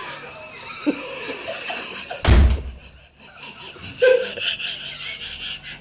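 A door banging shut with one loud, heavy thump about two seconds in, with people chuckling.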